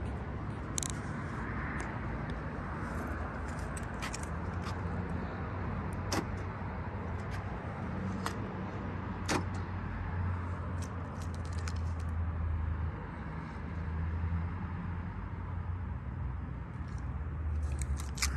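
Car keys jangling in a hand, a few sharp metallic ticks spread through, over a steady low hum of vehicle noise.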